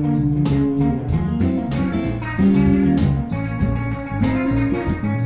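Outro music: an instrumental track led by plucked and strummed guitar, with sustained chords over a steady beat.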